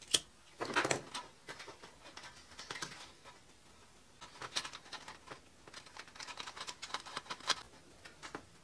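Light rustling and scattered small clicks of wires being handled and their ends twisted together by hand, in bunches near the start and again from about four seconds in.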